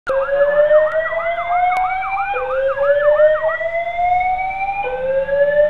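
Apartment building fire alarm sounding its evacuation whoop: a loud tone that sweeps slowly upward and restarts about every two and a half seconds. For the first few seconds a second, faster warbling tone sounds with it, then stops.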